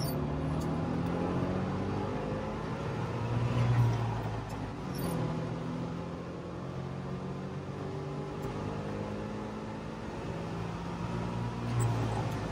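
Trabant 601's two-cylinder two-stroke engine running under way, heard from inside the cabin. Its pitch rises and falls with speed and gear changes, with a louder swell about four seconds in and again near the end.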